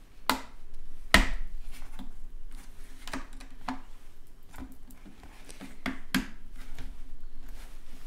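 Hard plastic clicks and knocks, with faint rustling between them, as fingers work a robot vacuum's clogged filter frame loose from its dust bin. There are about half a dozen clicks, the loudest about a second in.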